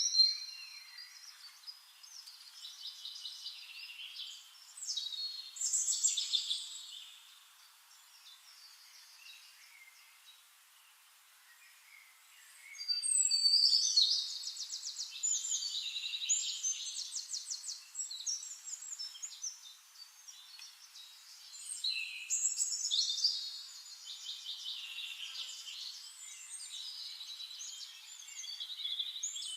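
Songbirds singing: bursts of chirps and rapid trills, with a quieter lull about eight to twelve seconds in.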